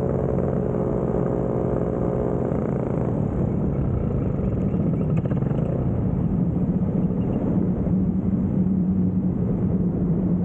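Paramotor engine running at low power with a steady hum, which fades about three seconds in under rushing wind noise as the wing glides in to land.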